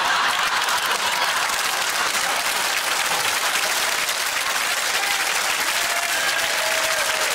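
A studio audience applauding steadily, with faint voices over it in the second half.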